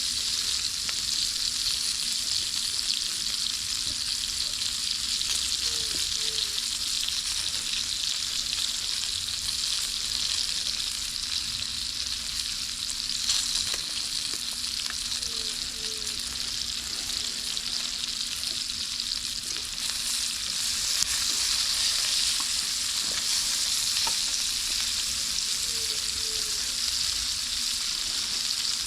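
Food sizzling steadily in hot fat in a pan over a campfire, with occasional stirring. A faint two-note chirp comes three times, about every ten seconds.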